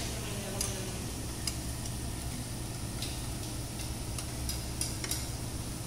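Metal tongs and utensils clicking now and then against dishes and a tabletop barbecue grill, over a steady low hum and faint sizzling of meat cooking.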